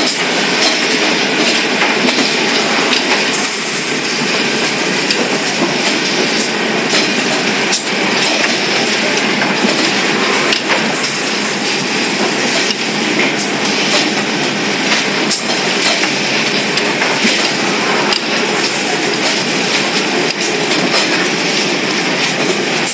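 Soft blister packing machine running: a loud, steady mechanical clatter with occasional sharp clicks.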